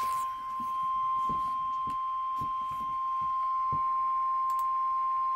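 NOAA Weather Radio 1050 Hz warning alarm tone: one steady, unbroken beep, with faint crackles beneath it. The tone signals that a severe weather warning, here a severe thunderstorm warning, is about to be read.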